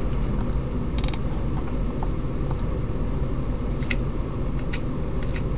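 A few scattered computer mouse clicks, short and faint, over a steady low background hum.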